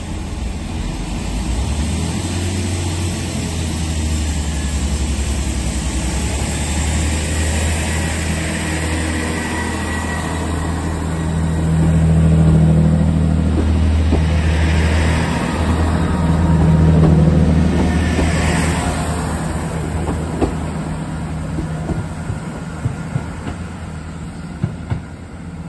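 Great Western Railway diesel multiple unit pulling away from the platform: a steady engine drone that swells louder twice as the train gathers speed, then fades as it draws away.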